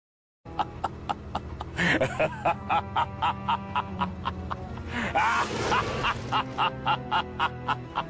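Evil laugh sound effect: a villainous laugh of rapid, evenly spaced "ha" syllables, about four a second, with two longer drawn-out swells, over a steady low drone. It starts about half a second in.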